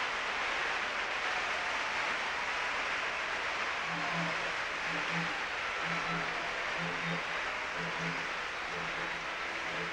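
Steady hiss-like wash of an old videotaped stage performance, with soft low orchestral notes pulsing in pairs about once a second from about four seconds in.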